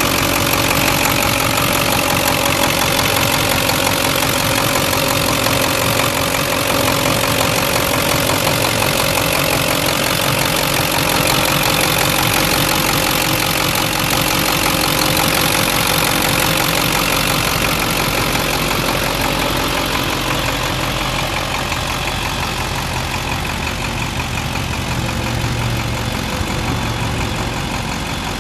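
2003 Ford F350 Super Duty's 7.3L turbo diesel V8 idling steadily, a little softer and duller over the last several seconds.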